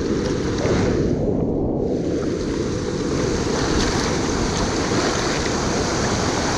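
Steady rush of river water running over the rocks at a weir, with wind buffeting the microphone. The higher hiss of the water thins briefly about a second in and then returns.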